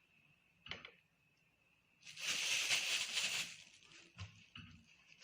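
A spoon working harissa into tomato sauce in a pot: a single click, then about a second and a half of scraping hiss, then a few light clicks and knocks.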